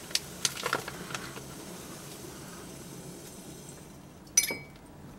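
Spoon clicking against a mug while sugar is added to tea, a few small ticks at first, then one sharp ringing clink near the end.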